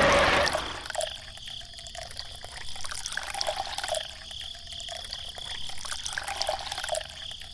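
Water trickling and dripping, with many small irregular splashes.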